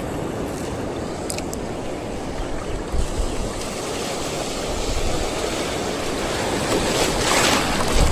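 Wind and sea waves, a steady rushing wash of water and wind noise, with a louder rushing surge near the end.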